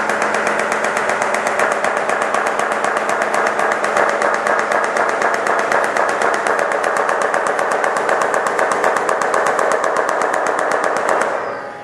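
Hanging loudspeaker in a sound-art installation giving out a loud, fast, even rattle of clicks over a steady low hum. It cuts off shortly before the end.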